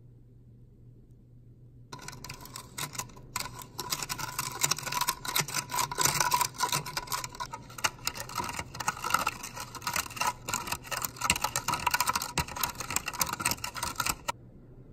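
Metal spoon stirring liquid in a cup, a rapid, busy run of clinks and scrapes against the cup wall. It begins about two seconds in and cuts off suddenly near the end, over a low steady hum.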